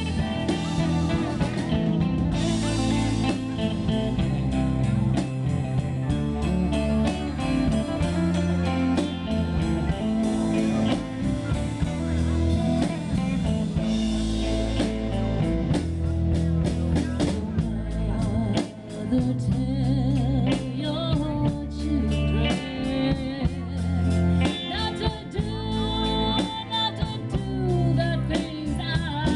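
Live band playing: electric guitar lead over bass guitar and drum kit, with a woman singing in the later part.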